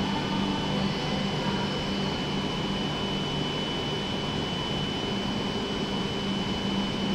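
Steady machinery hum of W7-series Shinkansen trainsets standing at the platform, with a constant high-pitched whine above it.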